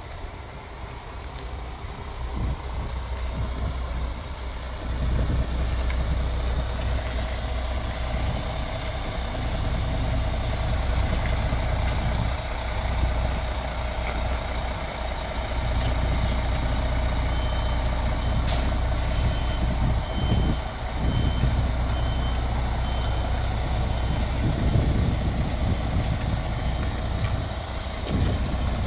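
MAN TGX 26.510 tractor unit's 12.4-litre straight-six diesel running as the lorry manoeuvres, its engine note growing louder over the first few seconds. From about midway its reversing alarm beeps evenly, a little more than once a second, for several seconds, with a brief sharp sound just after it starts; the beeping starts again right at the end.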